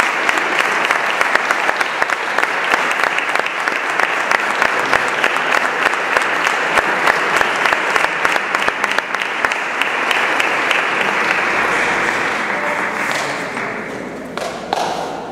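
Audience applauding, a dense round of clapping that dies away near the end into a few last claps.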